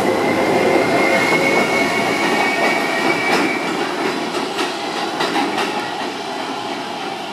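R143 subway train pulling out of an underground station and moving away. A steady high wheel squeal lasts for the first three seconds or so, then a few clicks of wheels over rail joints sound as the running noise slowly fades.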